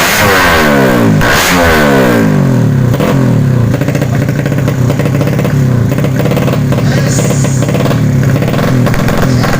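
Tuned 200 cc underbone drag-racing motorcycle engine revving. Its pitch falls repeatedly over the first couple of seconds, and then it holds a steady high-revving drone.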